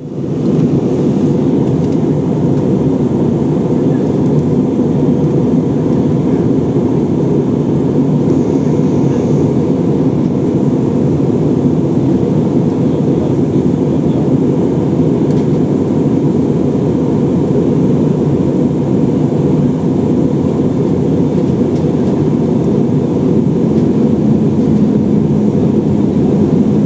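Steady jet engine and airflow noise heard inside an airliner cabin, an even low drone that does not change.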